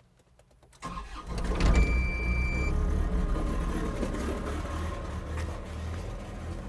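An engine of a Caterpillar machine starts up about a second in and runs with a steady low rumble that slowly eases. A brief high beep sounds about two seconds in.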